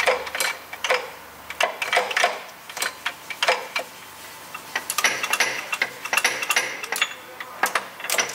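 Irregular metallic clicks and clacks of steel gears and shift linkage inside the open headstock gearbox of a STANKO 1M63 lathe, worked by hand through its speed positions. The clicking comes in clusters and grows busier in the second half.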